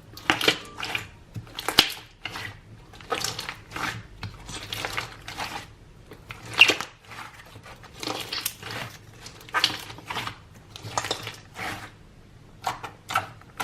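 Hands squishing and stretching a large mass of mixed slime, giving irregular wet pops and crackles.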